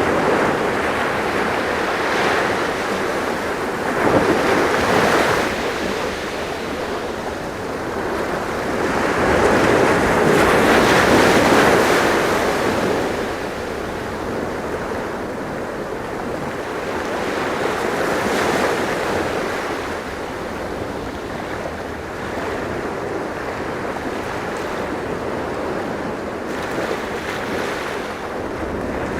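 Sea waves breaking and washing on the shore in a steady wash of surf, swelling louder every several seconds as each wave comes in.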